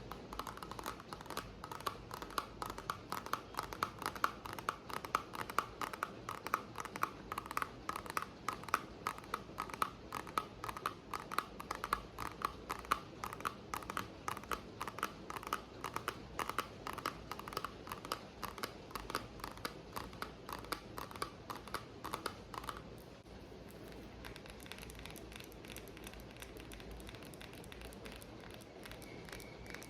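ASMR tapping: rapid taps, several a second, on an object that rings slightly, over a steady background of rain. About two-thirds of the way through, the ringing stops and the tapping turns softer.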